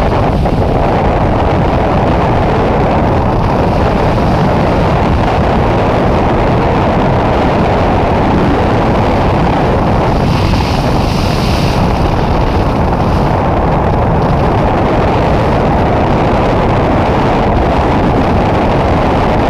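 Loud, steady roar of rushing wind buffeting the camera's microphone on a skydive.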